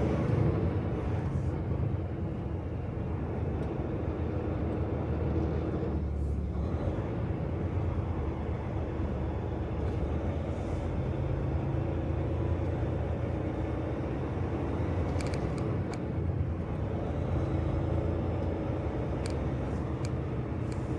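Semi-truck's diesel engine running with cab and road noise while the truck moves slowly, a steady low rumble, with a few light clicks in the second half.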